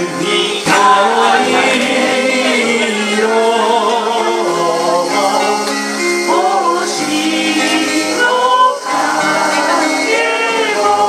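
Group sing-along: many voices singing a song together to acoustic guitar, with a brief break about nine seconds in.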